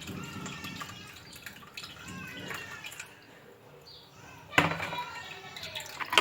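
Lemon juice mixture being poured through a strainer into a container, trickling and dripping, with wavering gurgling tones from the liquid. A sharp knock comes about four and a half seconds in, and a few more quick knocks near the end.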